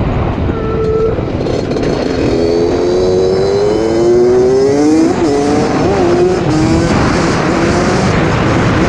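Suzuki RM60 two-stroke mini dirt bike engine revving under way. Its pitch climbs steadily from about two seconds in to about five seconds, then wavers up and down as the throttle eases. A steady low rush runs underneath.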